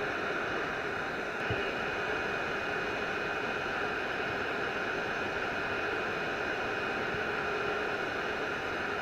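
Steady whirring hiss of small electric fans, with a faint steady high tone over it and one small knock about a second and a half in.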